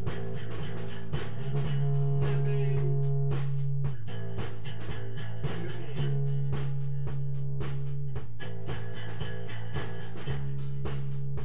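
Live rock jam: guitar over held bass notes that change every couple of seconds, with a steady drum beat.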